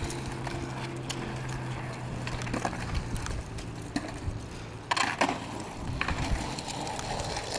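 A skateboard dropped onto concrete with a couple of sharp clacks about five seconds in, then its wheels rolling over the concrete as the skater steps on. A steady low hum and faint ticks come before the drop.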